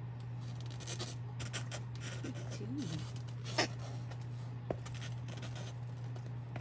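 Kittens' claws scratching and scrabbling at a mesh pen wall and a cardboard scratcher, in irregular scrapes with a sharper click about three and a half seconds in. A steady low hum runs underneath.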